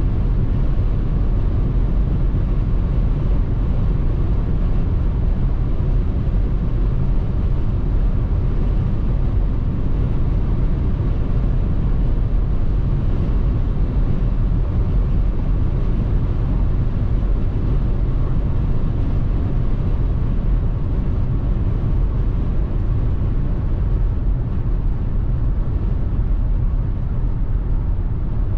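Steady tyre-roar and wind noise inside the cabin of a 2021 Ford Mustang Mach-E AWD electric SUV travelling at about 180 km/h. It eases a little near the end as the car slows.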